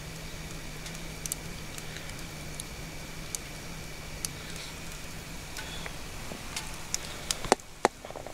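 Wood fire burning in a small camp wood stove: a steady hiss with scattered pops and crackles, the two loudest snaps coming close together near the end. A low steady hum runs under it.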